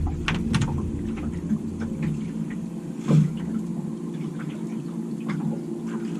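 Low, steady hum of an idling boat motor, with scattered small clicks and taps, the sharpest about three seconds in.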